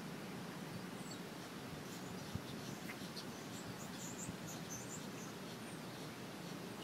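Quiet outdoor ambience: a steady hiss, with faint high-pitched chirps between about two and five seconds in and one soft knock a little over two seconds in.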